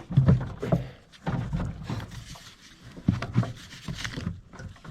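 A man grunting with effort in short bursts while shoving a new air filter element up into a tractor's air cleaner housing, with knocks and rubbing from the filter against the housing.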